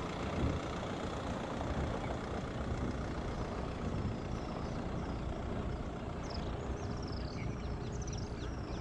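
Land Rover Discovery Sport creeping down a sandy slope under hill descent control, its engine and tyres a steady low noise. A bird gives a series of short, falling chirps over the last two seconds or so.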